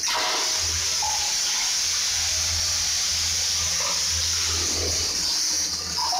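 Handheld bidet sprayer spraying a steady jet of water into a ceramic toilet bowl, switching on abruptly and running as an even hiss of spray.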